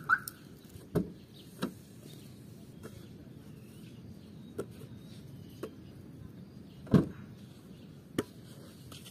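About eight sharp knocks or taps spaced irregularly over several seconds, the loudest about seven seconds in, over a low outdoor background.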